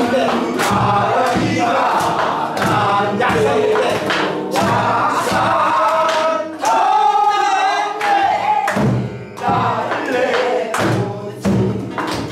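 A group of men and women sings a Korean folk song (minyo) in chorus, clapping their hands on the beat, with acoustic guitar accompaniment. About two-thirds of the way through, the voices hold one long wavering note.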